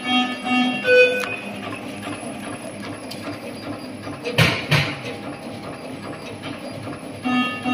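High-speed film label cutting machine running, with a loud double knock about four and a half seconds in. Plucked-string background music plays for the first second or so.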